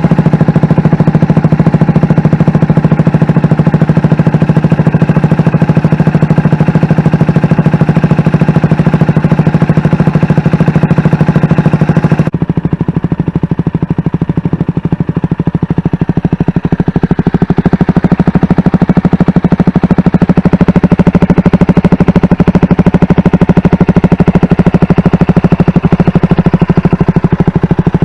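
CFMoto 300SS single-cylinder motorcycle engine idling steadily just after being started, a loud, even, rapid pulsing. About twelve seconds in, the sound abruptly turns duller and slightly quieter.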